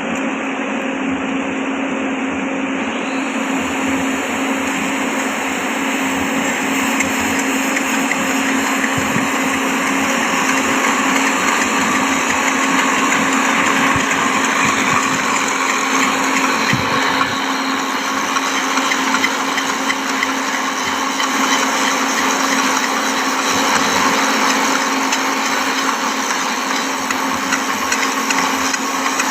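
Abrasive grinder running steadily against steel rail, cleaning the rail end before flash butt welding. A continuous hum sits under a dense, hissy grinding noise.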